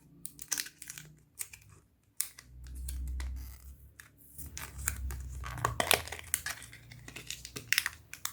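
Plastic retail packaging of a laptop RAM module being pried and torn open by hand: irregular crinkling and sharp plastic clicks, with low handling rumbles in between.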